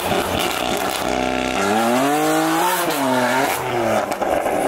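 BMW F80 M3's twin-turbo inline-six revving: the pitch climbs for about a second, falls back, climbs briefly again and drops away.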